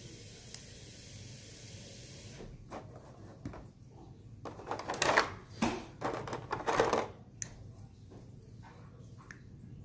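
Hands handling hard plastic toy parts and a clear plastic blister tray: scattered clicks and crinkling plastic, loudest for a couple of seconds in the middle.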